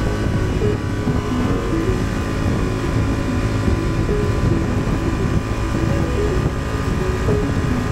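A 2023 Honda Transalp's parallel-twin engine runs at a steady cruise under an even rush of wind and road noise on the move.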